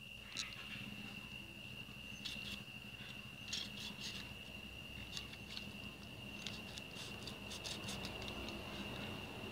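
Kitchen knife scraping the scales off a small snakehead fish on a wooden chopping board, in short irregular strokes. A steady high-pitched insect trill runs behind it.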